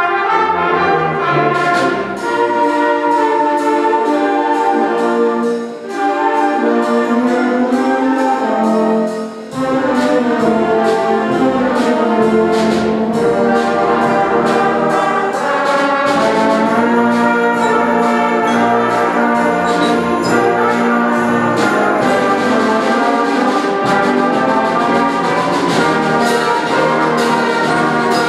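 Concert band of woodwinds, brass and percussion playing a piece in full sustained chords with moving melody lines, with percussion strokes throughout. The music drops briefly at two phrase breaks, about 6 and 9 seconds in.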